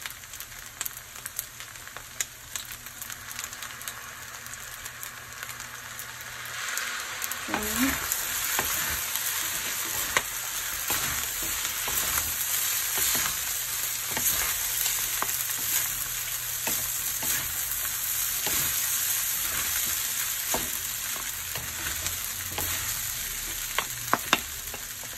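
Fried rice sizzling in a hot metal pan while it is stirred and turned with a wooden spatula, the spatula scraping and knocking against the pan again and again. The sizzle gets louder about seven seconds in.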